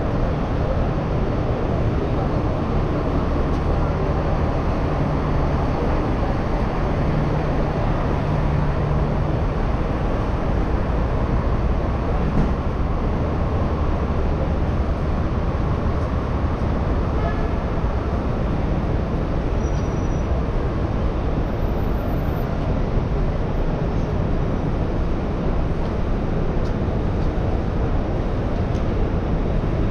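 Steady city street traffic noise: a continuous rumble of engines and tyres, with a low engine hum standing out for the first several seconds.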